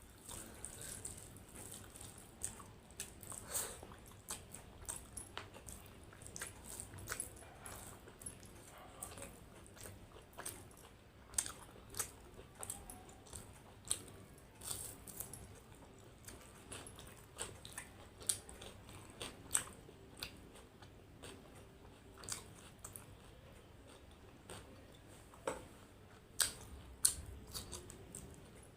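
Close-up eating sounds: chewing and biting with wet mouth clicks and smacks at irregular intervals.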